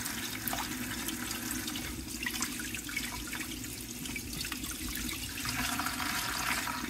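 Water poured in a steady stream from a plastic container into a plastic bucket, splashing onto a small plastic cup set on the bottom to spread the water out over a layer of dark mud.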